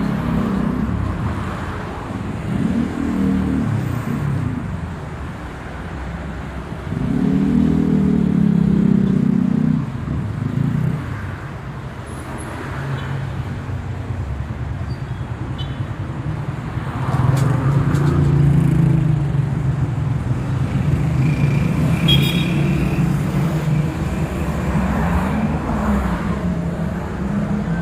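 City street traffic: car engines running and passing close by, with louder swells as vehicles go past. A steady engine hum holds through the second half.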